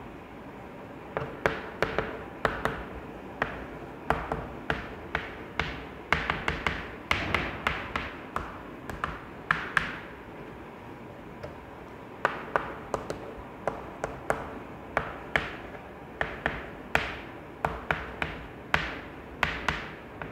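Chalk writing on a chalkboard: clusters of sharp taps and short scratches, several a second, with brief pauses between them.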